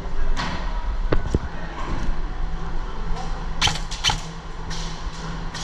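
Airsoft rifle firing single shots: a series of sharp separate cracks, the loudest two close together about two-thirds of the way through.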